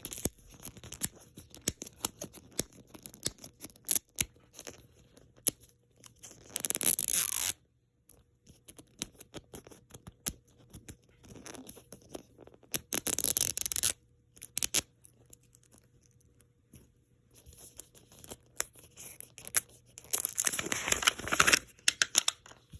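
The wrapping of a Mini Brands toy capsule being picked at and torn open by hand. Scattered scratching and clicking is broken by three longer tearing rips, each lasting about a second; the last comes near the end.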